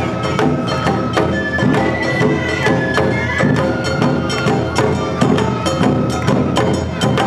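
Awa odori band (narimono) playing its brisk two-beat festival rhythm: large and small taiko drums and a clanging kane hand gong struck in a steady beat, with a bamboo flute holding high notes about a second into the passage.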